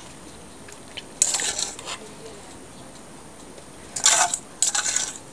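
Short scraping and rustling sounds, three in all, about a second in and twice near the end, as paprika-seasoned olive oil is drizzled from a stainless steel bowl over chopped vegetables in an aluminium foil baking pan.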